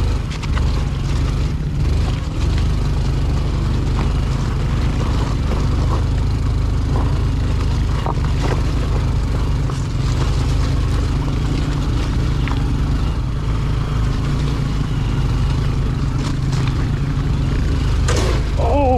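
Small single-cylinder trail motorcycle engine running steadily while riding, with a few scattered clicks and knocks.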